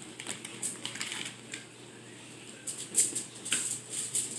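Irregular crinkling and rustling from hands handling food-prep materials, in short uneven bursts.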